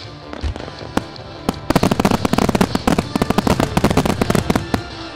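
Marutamaya Ogatsu starmine fireworks: two single bangs about a second in, then a dense, rapid crackling of many small reports for about three seconds. Music plays underneath throughout.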